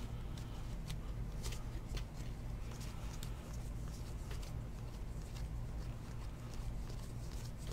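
Baseball trading cards being flicked and slid past one another by hand as a stack is sorted through: soft, irregular clicks and rustles over a steady low hum.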